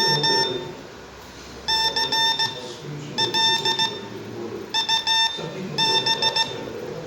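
Morse code practice oscillator sending CW as a buzzy, fairly high tone, keyed on and off in short dots and longer dashes. The characters come in about five groups with brief gaps between them, as a learner sends on the key.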